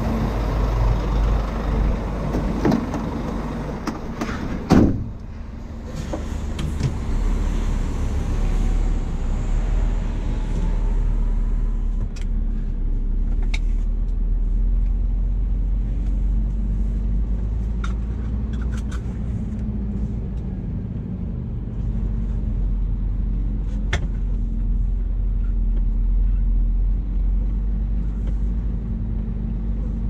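Scania R440 truck's straight-six diesel engine running steadily at low speed as the truck pulls away, heard mostly from inside the cab as a low drone. A loud thump about five seconds in, and a few faint clicks later on.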